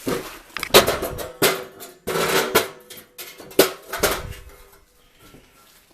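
Half a dozen sharp knocks and clatters over about four seconds, some leaving a short metallic ring, dying away near the end.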